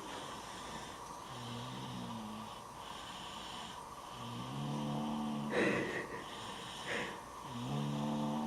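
Snoring: three low, buzzing snores on the in-breath, about three seconds apart, with two short breathy puffs between the second and third.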